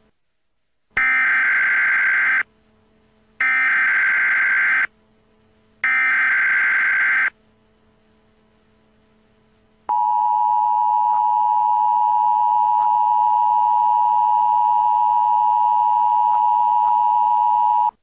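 Emergency Alert System broadcast tones: the SAME digital header sent as three bursts of screeching data tones, each about a second and a half long. About ten seconds in, the steady two-tone attention signal sounds for about eight seconds. Together they announce a civil danger warning.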